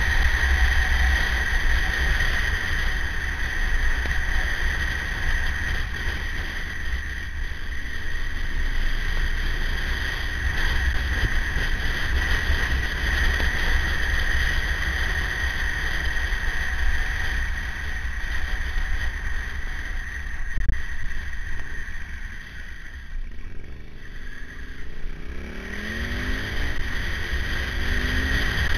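Wind buffeting the onboard microphone of a KTM 950 motorcycle at speed, over the LC8 V-twin engine. Near the end the engine note rises again in a few sweeps as it accelerates.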